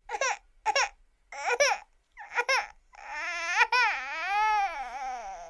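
Crying sound effect of a baby: four short, wavering sobs, then one long wail from about three seconds in that rises and falls in pitch.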